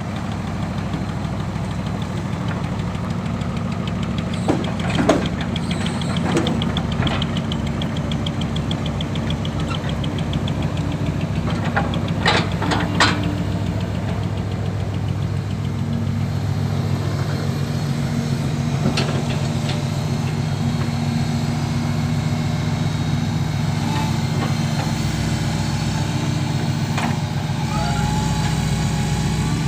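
Diesel engine of a Kobelco SK135SR excavator running steadily while it drives off a trailer, with a few sharp knocks, the loudest about five seconds in and about twelve to thirteen seconds in.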